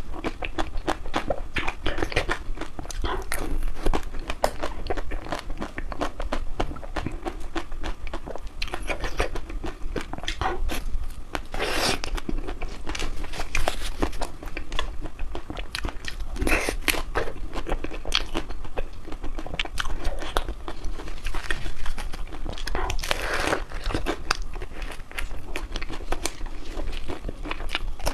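Close-up crunching and chewing of a crispy, dry chocolate ice cream: dense, irregular crisp crackles with a few louder bites.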